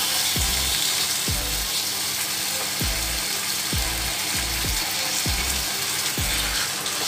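Marinated chicken thighs sizzling skin-side down in a frying pan over low heat, under background music with a steady low beat about once a second.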